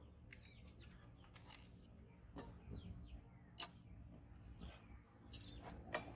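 Birds chirping faintly and on and off, with a few light clicks and knocks of tools being handled. The sharpest click comes a little past halfway. The angle grinder is not running.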